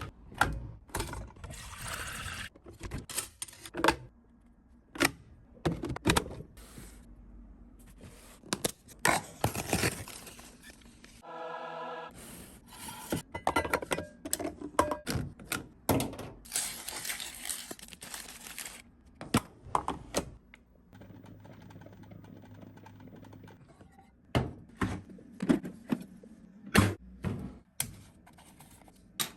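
Handling sounds from a Makita battery-powered coffee maker being set up and run: many sharp plastic clicks and knocks, several stretches of hissing noise, a short tone about twelve seconds in, and a low steady hum for a couple of seconds around twenty-one seconds in.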